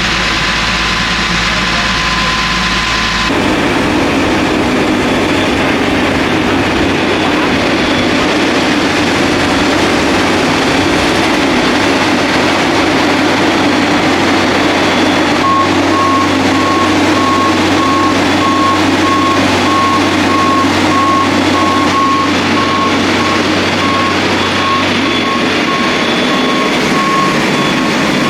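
Engine of a mobile boat hoist (travel lift) running steadily, its sound changing a few seconds in. About halfway through a warning beeper starts sounding repeated beeps.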